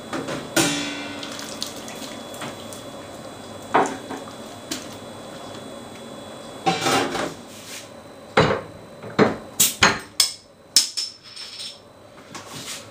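Stainless steel lid of a Speidel Braumeister brewing kettle clanking, with a short metallic ring, as it is lifted for a hop addition and set back. Near the end comes a quick run of sharp knocks and clinks from a glass beer bottle and glass mug being handled.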